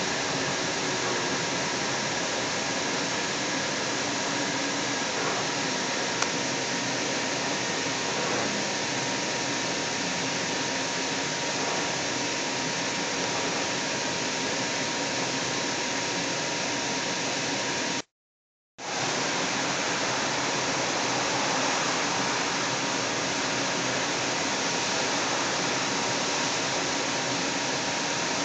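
Steady hiss inside a Seattle Link light rail car as it runs, with a faint steady whine; the sound drops out completely for under a second about two-thirds of the way in.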